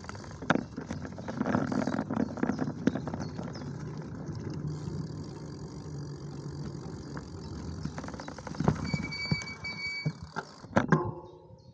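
Bicycle riding along a paved cycle path: steady tyre and road noise with frequent short rattles and knocks as it goes over bumps.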